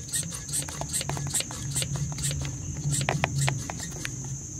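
Hand vacuum pump being stroked to pull vacuum on a leak detection pump's hose, with short clicks repeating two to three times a second over a steady high whine.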